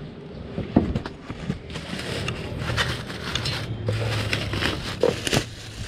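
Thin plastic wrapping bag crinkling and rustling in irregular crackles as it is handled and pulled open by hand.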